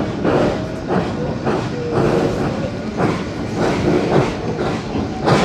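Steam train running, heard on board: steady noise of the moving train with a regular beat about twice a second.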